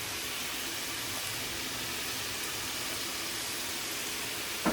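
Chicken frying in hot oil in an uncovered pot, a steady even sizzle.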